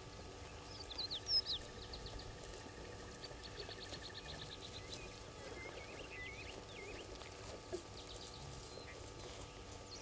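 Small songbirds calling: a few sharp, falling chirps about a second in, then a quick, even trill of high notes, and a run of twittering notes later on.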